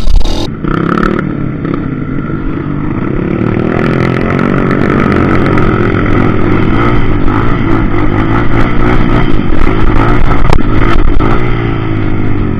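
Trail motorcycle engine running under way on a dirt track, its revs climbing gradually over the first few seconds, then holding with small rises and falls and a brief drop near the end.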